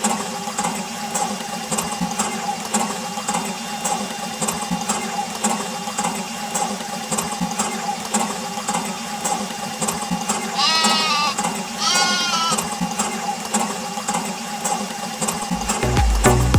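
A small motor-driven mini water pump running with a steady hum and regular ticking, with water splashing. Two short bleating calls sound about two-thirds of the way through.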